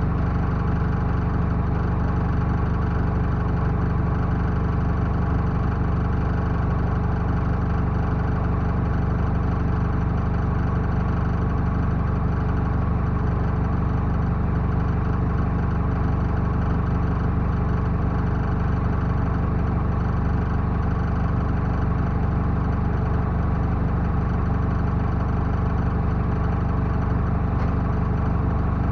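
Backhoe loader's diesel engine idling steadily, with no revving.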